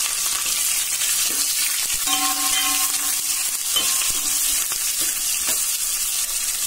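Sliced onions, curry leaves and garlic sizzling in hot oil in a stainless steel pot while being sautéed, with a steady frying hiss. A steel ladle stirs them, scraping and knocking against the pot several times.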